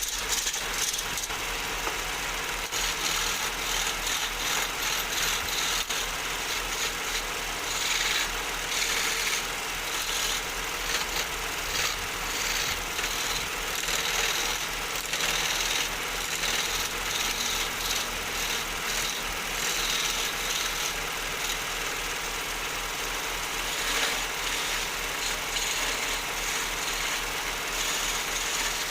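Wood lathe running: a steady low hum under a hissing, scraping high noise that swells and fades, as from a turning tool cutting the spinning wood.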